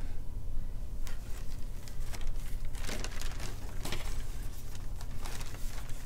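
Rice-paper sheets rustling as painted sheets are handled and shifted by hand, a few soft separate rustles over a low steady hum.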